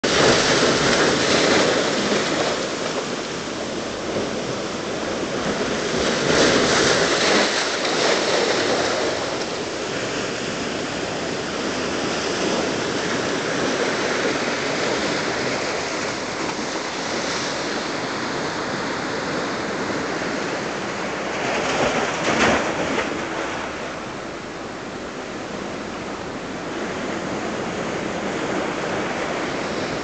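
Atlantic surf washing into a rocky gully and against the shore rocks: a steady rush of water that swells louder near the start, again around six to eight seconds in, and briefly around twenty-two seconds.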